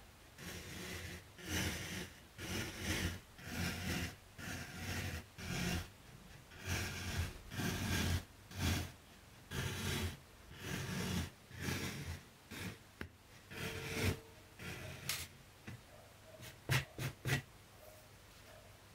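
Embroidery floss drawn through evenweave fabric over and over, a rasping swish with each pull. A few short clicks follow near the end.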